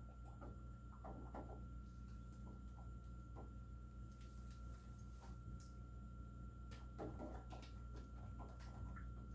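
Faint steady room hum with a thin high whine, and scattered soft taps and rustles as paint is dabbed on and a small paint bottle is handled, a little busier near the end.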